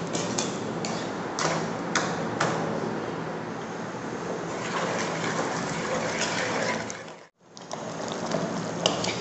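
Wooden spatula stirring raw mango pieces in sugar syrup in an aluminium pot, with sharp knocks and scrapes against the pot over a steady simmering hiss. About seven seconds in the sound fades out briefly, then returns with the syrup bubbling at the boil and more spatula knocks.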